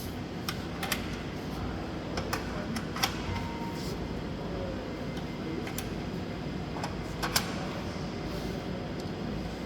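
Workshop machinery running with a steady low hum, with scattered sharp clicks and knocks: a few in the first second, a pair a little after 2 s, one about 3 s in and a loud double knock a little after 7 s.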